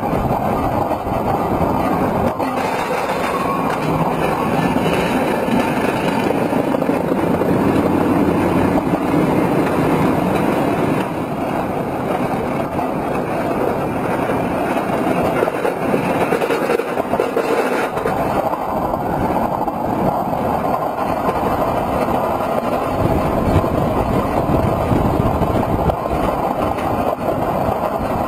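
Roller coaster heard from on board: a steady rush of wind and rumble of the cars running on the steel track.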